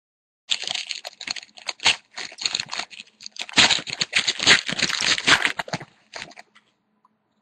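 Hockey trading cards and their pack being handled close to the microphone: a quick run of crisp crinkling, rustling and clicking as cards are slid and flipped, dying away about a second before the end.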